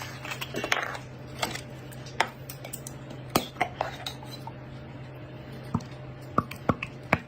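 Utensils knocking and clinking against a bowl as noodles are stirred and mixed with sauce: scattered, irregular clicks.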